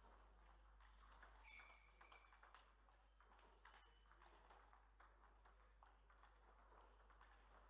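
Faint, irregular clicks of a table tennis ball striking the table and rackets, with a brief high squeak about a second and a half in.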